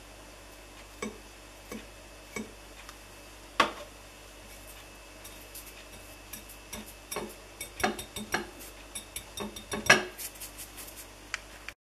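Light clicks and taps on a glass plate as fine metal chips are set alight with a 9-volt battery and pushed about by a finger. The clicks come singly at first and grow thicker and louder from about seven seconds in, with the sharpest one near ten seconds.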